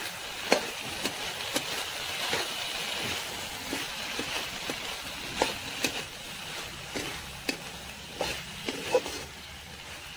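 Metal spatula scraping and knocking against a metal wok as drumstick leaves and vegetables are stir-fried, with irregular sharp clicks over a steady sizzle.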